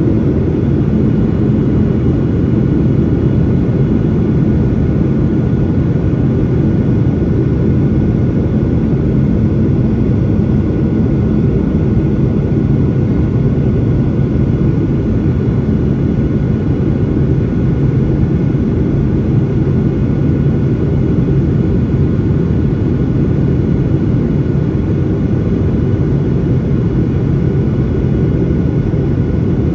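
Steady cabin noise inside a Boeing 737-800 in flight: the even drone of its CFM56-7B turbofan engines and the rush of air past the fuselage, low and unchanging, with a faint steady whine above it.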